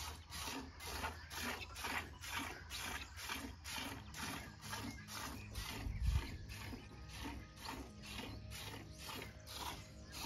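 Hand milking a cow into a metal pail: an even run of squirts of milk hitting the bucket, about two a second, with one low thump about six seconds in.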